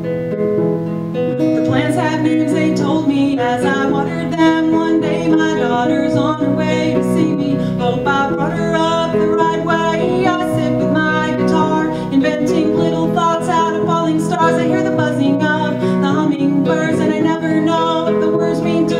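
A woman singing a song to her own strummed acoustic guitar. The guitar plays alone for about a second and a half before the voice comes in.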